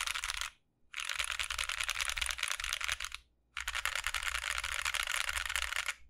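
Keys pressed rapidly on a mechanical keyboard with lubed Gazzew Boba U4T tactile switches (68 g), Cherry profile PBT keycaps and an aluminum plate in a Tofu65 aluminum case. There are three runs of dense clicking, with brief pauses about half a second in and about three seconds in.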